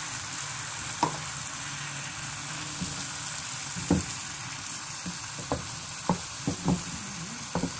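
Potato curry with freshly added water bubbling and sizzling in a cast-iron pan on a gas burner, a steady hiss. Short light knocks come now and then, most of them in the last few seconds.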